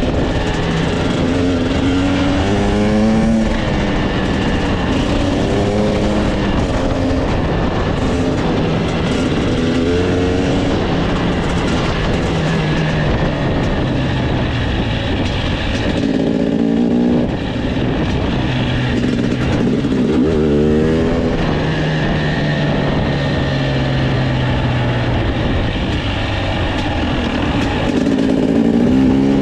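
2023 KTM 250 TPI Six Days' single-cylinder two-stroke engine running under way, its pitch repeatedly rising and dropping back as the throttle is opened and closed, with steadier stretches between.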